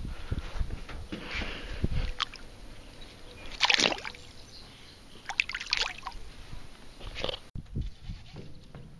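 A largemouth bass let go into the lake: a splash about four seconds in, then smaller splashes as it kicks away at the surface.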